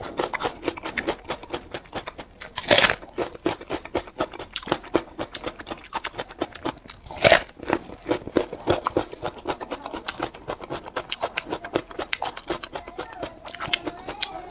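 Close-up chewing of onion: rapid, irregular crunches and wet mouth clicks, with a couple of louder crunches.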